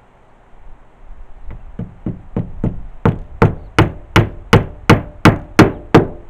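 Hammer driving 20 mm nails through roofing felt into an 18 mm wooden roof board: a run of blows about three a second, light taps at first about a second and a half in, then hard, sharp strikes.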